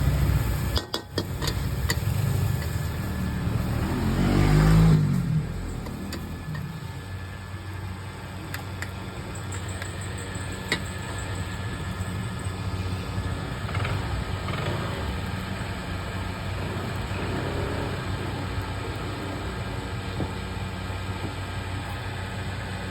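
Street traffic: a vehicle passes close by, its engine sound building and peaking about five seconds in, then a steady, quieter traffic hum with scattered clicks.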